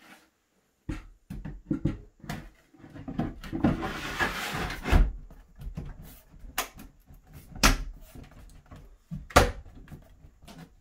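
A drawer box being set onto metal drawer slides and pushed in: knocks and a sliding rattle from the slides, then several sharp clicks, the loudest a little over nine seconds in, as the box clicks into place on the slides.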